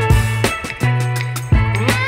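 Upbeat background music with a bass line and a steady drum beat.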